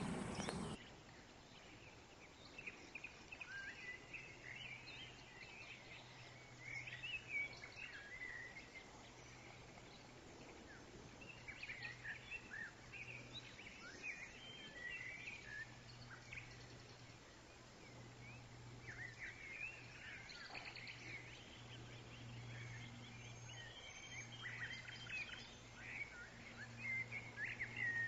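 Birds chirping and warbling intermittently, faint, over a low steady hum. In the first second a Highland cow's moo is cut off.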